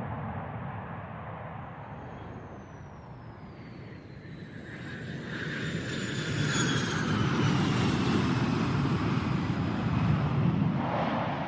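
An aircraft passing: engine noise swells over several seconds to a peak, with a high whine that glides down in pitch, then eases near the end.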